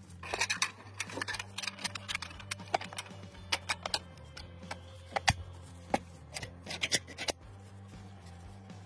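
Quick clicks, taps and light scrapes of a coil spring, follower and polymer rifle magazine body being handled and fitted together. The clicks stop about seven seconds in.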